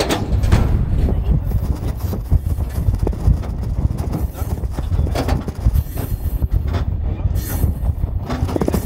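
Iron-ore freight wagons of the Mauritania Railway rolling along: a steady low rumble with frequent irregular clanks and knocks of the cars, heard from inside an open ore wagon.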